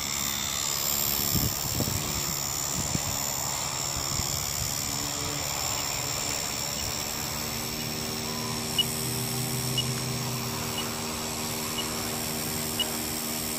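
Blade 150S RC helicopter's electric motors and rotor blades whining steadily, first flying low and then sitting on the grass with the rotors still turning. Light ticks come about once a second in the second half.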